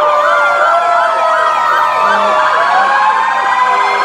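Several fire apparatus sirens sounding at once from a passing line of fire trucks and a fire department SUV. Slow rising and falling wails overlap with fast yelps.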